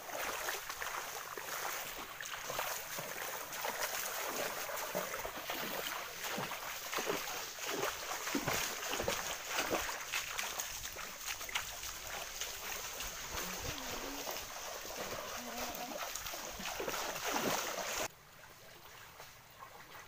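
Water sloshing and splashing as people wade through a shallow creek, with irregular splashes over a steady hiss. Near the end it cuts to a much quieter trickle of the creek's water.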